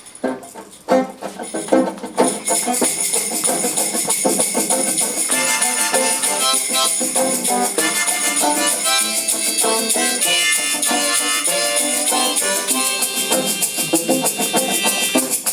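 Live instrumental introduction to a song: a shaker keeps a fast, even rhythm, starting about two seconds in, under a melody of played notes.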